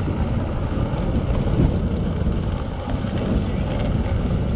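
A pack of classic motocross bikes' engines running together as they ride round the track, with wind buffeting the microphone.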